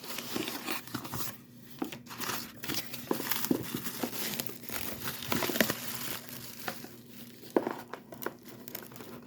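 Packing material crinkling and rustling in the hands as a shipping box is unpacked, with irregular small crackles and some tearing.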